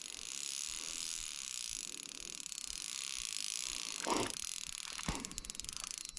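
Fly reel's drag buzzing as a hooked carp runs, pulling backing off the spool; the clicks slow near the end and stop suddenly. Two soft bumps about four and five seconds in.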